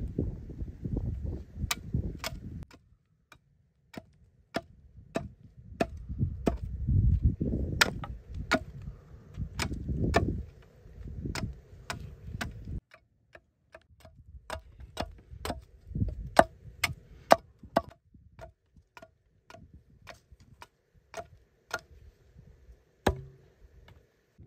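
Repeated sharp blows of a hand tool on wood, roughly two knocks a second with short pauses, over a low rustling rumble that stops about halfway through.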